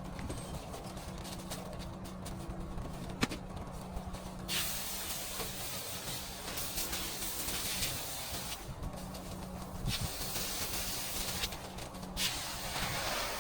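Pressure-washer spray hissing in bursts of a few seconds that switch on and off sharply, over a steady low motor drone.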